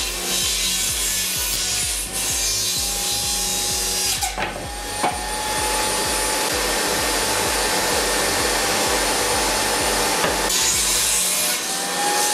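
Homemade table saw running and cutting through a pine furniture panel: a steady motor whine under the rushing noise of the blade in the wood.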